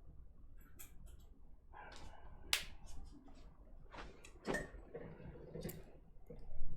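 Scattered light clicks and taps of keycaps and small keyboard parts being handled, with brief rustling. The sharpest click is about two and a half seconds in.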